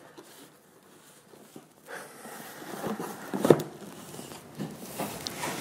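A large cardboard box being handled and turned over on a tabletop: soft scrapes and rustles of the box against hands and table, with one sharp knock about three and a half seconds in.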